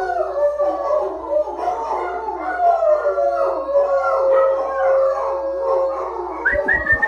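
Several dogs howling together in overlapping, wavering howls, one howl held for a few seconds. Near the end a run of short rising high-pitched notes starts.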